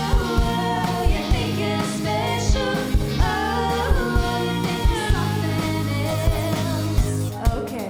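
Live band playing a pop-rock cover song: a lead singer over bass and a steady drum beat.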